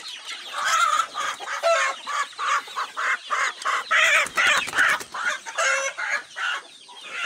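Free-range chickens clucking in quick, repeated calls, about three a second, fading out near the end.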